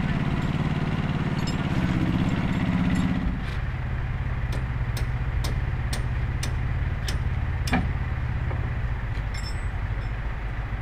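Large engine idling steadily. About three and a half seconds in, the sound changes to a deeper hum, and a run of sharp clicks follows over the next few seconds.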